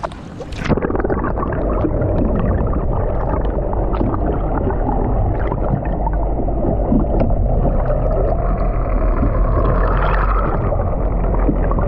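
Underwater sound through a submerged camera: a dense, muffled low rumble and gurgle of sea water with scattered small clicks. The sound turns dull about half a second in, as the camera goes under the surface.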